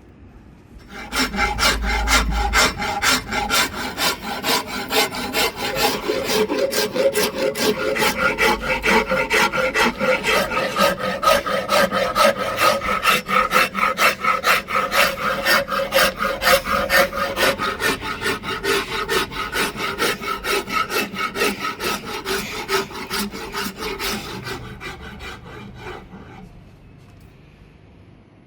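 Wood being rasped by hand in quick, steady back-and-forth strokes, most likely a Siamese rosewood axe handle being shaped. The strokes start about a second in and fade out and stop shortly before the end.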